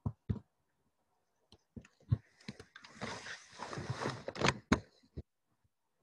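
Scattered sharp clicks, then about a second and a half of rustling with a few louder clicks near the end: handling noise at the recording end.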